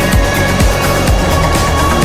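Music soundtrack with a steady, fast bass beat, about four strokes a second, under held high tones.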